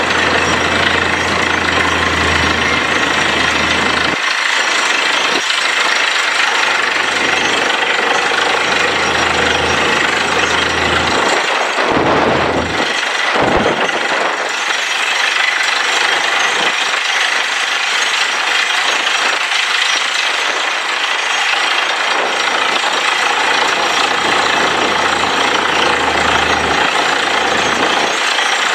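Truck-mounted borewell drilling rig drilling: a loud, steady rush of machinery noise, with a low engine hum underneath that drops away about four seconds in and again around twelve seconds.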